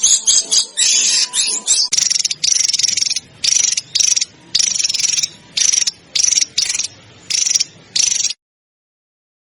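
Songbird calls from a bird-training master recording: a quick run of chattering notes, then about ten short, harsh rasping calls given in rapid succession. The calls cut off abruptly into silence near the end.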